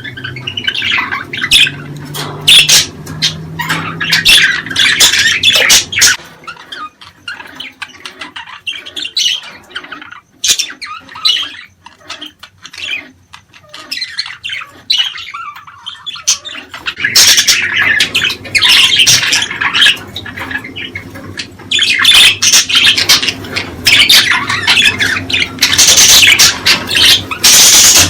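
Budgerigars chattering and squawking, many short calls overlapping. They quieten to scattered calls for several seconds in the middle, then become busy and loud again.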